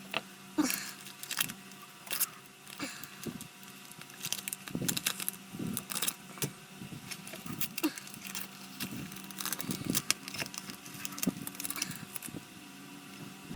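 Irregular small clicks, scrapes and crackles from handwork on a plastic model car body with an X-Acto knife and masking tape, scattered through the whole stretch with a few short squeaky scrapes.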